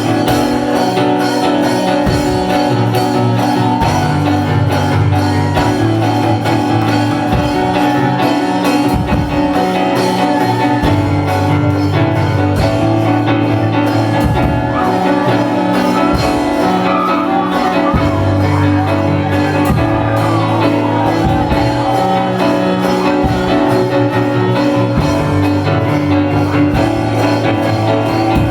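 Live worship band music: sustained chords over a moving bass line, with guitar, in a large room.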